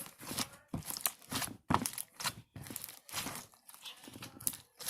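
Hands squishing and stretching slime: a quick, irregular run of short squishes.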